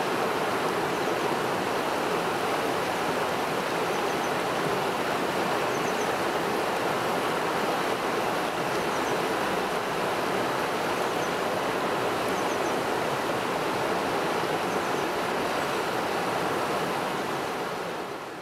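Shallow river rapids: water rushing steadily over rocks, with a few faint high chirps now and then. It fades out near the end.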